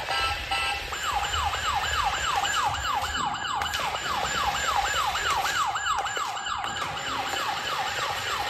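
Toy police motorcycle's electronic siren. A brief stuttering tone gives way, about a second in, to a rapid repeating wail that falls in pitch about three times a second.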